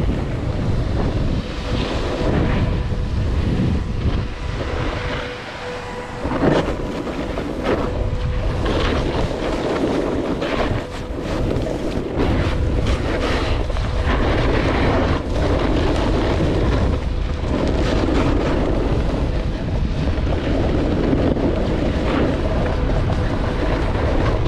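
Wind rushing over a GoPro's microphone as a snowboard slides and carves down packed snow at speed. The board's edge scrapes and hisses, swelling and fading with the turns, over a steady low wind rumble.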